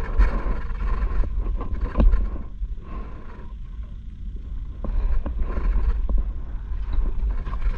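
Wind buffeting the microphone as a loud, uneven low rumble, with a few sharp clicks and knocks as fish are taken off a sabiki rig over a plastic bucket.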